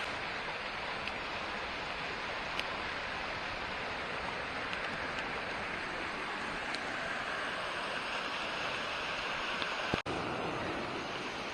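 Steady rush of a waterfall on a mountain creek, an even wash of falling water that briefly cuts out about ten seconds in.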